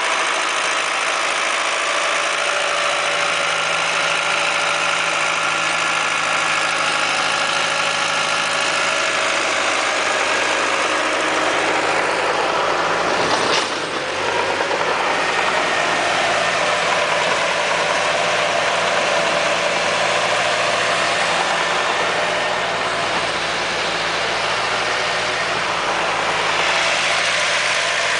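Tractor engine running steadily while driving a tractor-mounted rotary tiller working soil, with one short click and a brief dip in level about halfway through.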